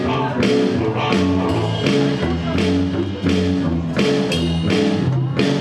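Live band playing: electric bass and electric guitar over a steady beat of about two strokes a second.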